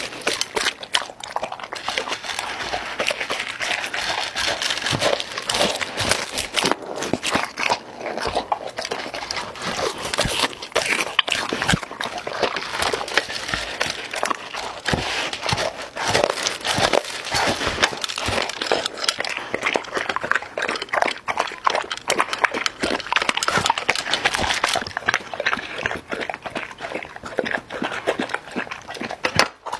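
Black Labrador eating dry kibble from a glass bowl: a dense, continuous run of crunching and chewing, with its muzzle pushing through the food. Near the end it laps up a milky liquid from a second glass bowl.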